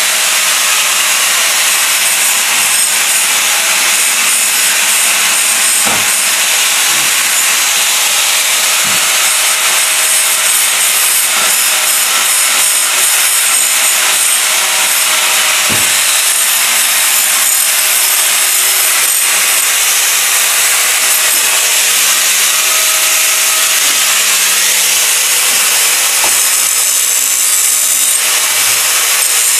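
A power tool running steadily on a tiling job: a loud, even hiss with a faint high whine, and a few faint knocks.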